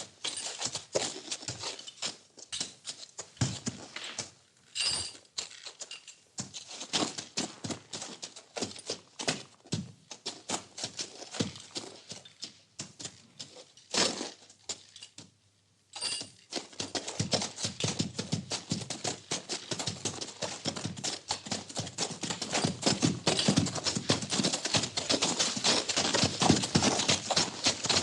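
Horses moving in a stable: hooves knocking and shuffling on the floor among scattered thuds and rustling. After a brief pause about halfway, a denser, louder run of rapid clicking and rustling sets in and keeps on.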